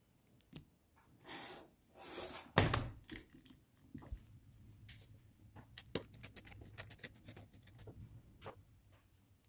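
Two quick sliding swishes, then a single loud thunk as a Dell XPS 9560 laptop is turned over and set down on a wooden table. After it come scattered light clicks and taps of hands handling the opened laptop.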